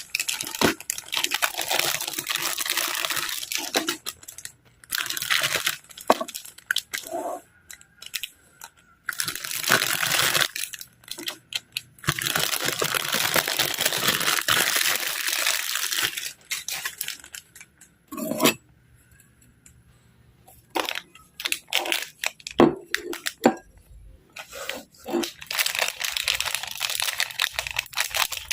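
Crinkly plastic packaging of an Oreo cookie pack being handled and torn open, in long rustling stretches separated by short pauses and a few sharp clicks.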